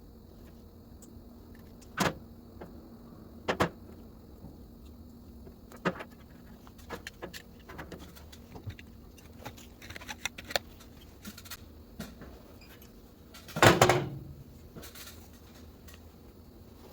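Sharp clicks and knocks of small hard parts being handled, one every second or two, with a louder clatter about three-quarters of the way through.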